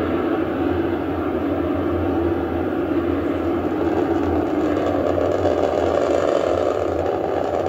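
Steady rocket roar from the Antares 230+ first stage's two RD-181 engines as the rocket climbs shortly after liftoff.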